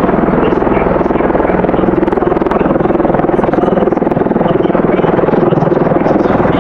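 MV-22 Osprey tiltrotor flying low in helicopter mode, its two large proprotors beating rapidly over the steady drone of its twin turboshaft engines. The sound is loud and even.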